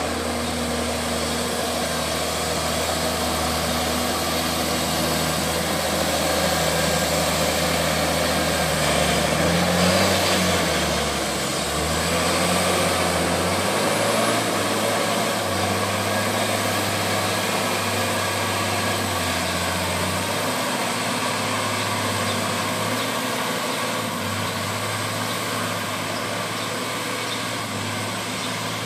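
Valtra T191 tractor's six-cylinder diesel engine working in deep mud, its engine note shifting and dropping as the load changes, loudest about ten seconds in.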